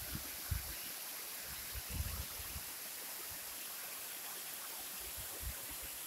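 Steady rush of falling water from the Machkanda waterfall, with a few brief low thumps on the microphone.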